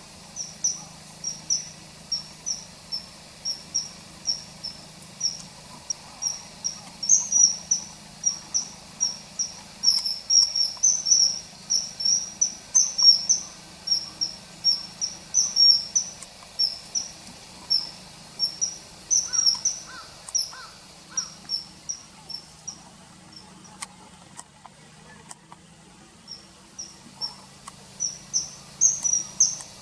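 Common kingfisher calling: a rapid, continuous series of short, shrill high notes, about two or three a second. The calls stop for several seconds late on and start again near the end, over a faint low hum.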